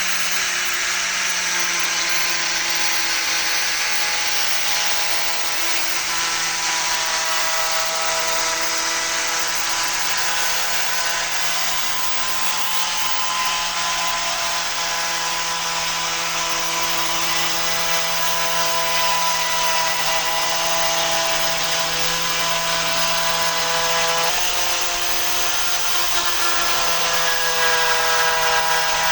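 Homemade profile cutter driven by an angle grinder motor, running continuously with a steady whine that wavers a little in pitch as it cuts. There is a short break in the whine about 24 seconds in, after which it carries on.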